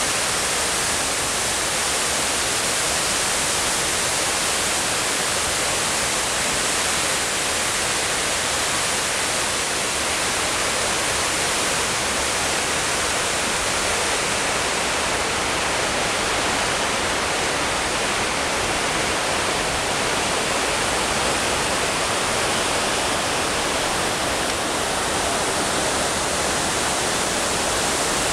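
Steady rush of water falling in a continuous sheet down the granite walls of the 9/11 Memorial reflecting pool into the basin.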